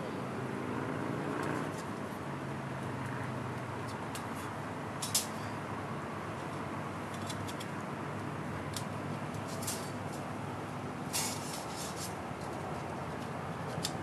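A steady low rumble of background noise, with a few short sharp clicks and taps of small objects being handled, one about five seconds in and a cluster near the end.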